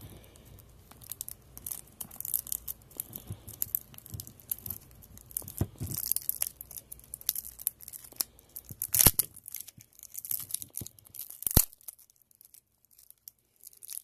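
Clear plastic shrink wrap being torn and peeled off a stack of trading cards: crinkling and crackling, with two louder sharp snaps in the second half.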